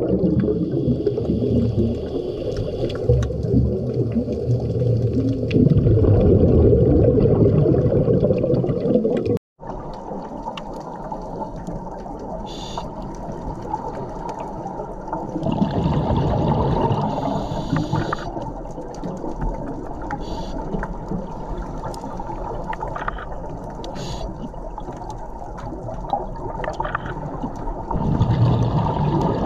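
Underwater recording of a scuba diver's exhaled regulator bubbles gurgling in loud surges, with steady water noise between them. The sound cuts out for an instant about nine seconds in.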